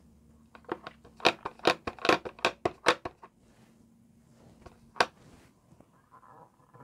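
Clear acrylic stamp block tapped repeatedly onto an ink pad, a quick run of sharp clicks lasting about two and a half seconds. Then one sharp knock as the block is set down on a paper tag, followed by faint rubbing as it is pressed.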